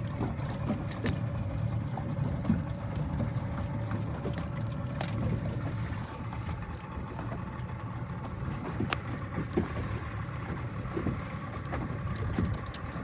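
Small fishing boat's engine running steadily, a low rumble with a steady hum, with a few scattered knocks and clicks.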